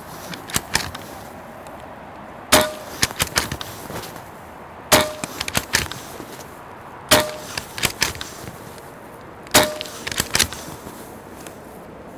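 Hatsan Flash .22 PCP air rifle with its integral moderator fired four times, about two and a half seconds apart. Each shot is a sharp crack with a brief ring, followed by a few lighter clicks as the bolt is cycled for the next pellet.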